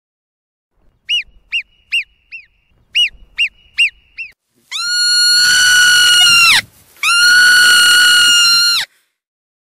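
Marmot calls: a run of eight short chirping whistles, each rising and falling in pitch, then two long, steady, high whistles of about two seconds each.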